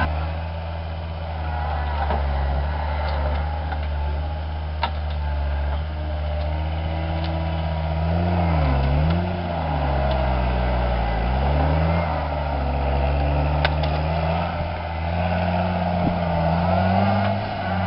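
John Deere compact track loader's diesel engine running hard while its tree puller grips and pulls a tree out by the roots; the engine pitch sags and recovers twice about halfway through as it works under load. A couple of sharp clicks come through over the engine.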